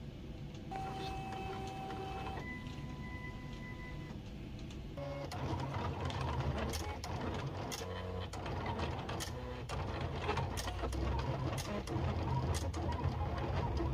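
Silhouette Cameo 3 cutting machine's motors running: a steady whine that jumps to a new pitch twice in the first few seconds, then from about five seconds in a louder, busier whirring with rapid ticks as the carriage and rollers move the blade around the printed design.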